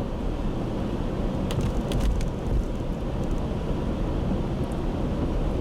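Car driving, a steady low road and engine rumble heard from inside the cabin, with a few faint ticks.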